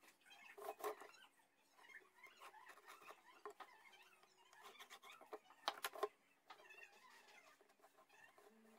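Quiet handling of metal measuring tools on a wooden board: a steel ruler and try square knocked and set down, in two short clusters of knocks, about a second in and about six seconds in.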